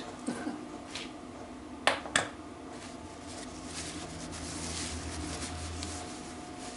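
Two sharp clicks a quarter of a second apart, about two seconds in, from engine parts being handled on the bench; a low steady hum underneath, a little louder between about three and a half and six seconds.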